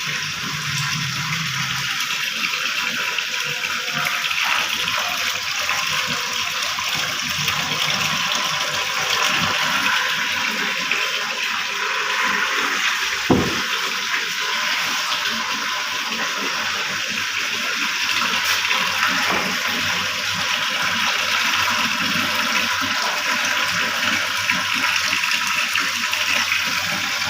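Water running steadily in a continuous rush, with a single knock about halfway through.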